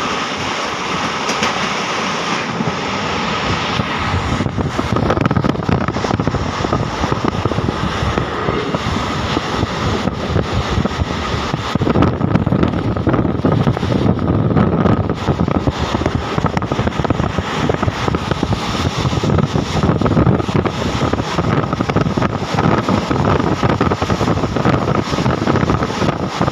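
A passenger train running at speed, heard from an open window of the coach: a steady rumble and clatter of wheels on rails with wind on the microphone, growing louder a few seconds in.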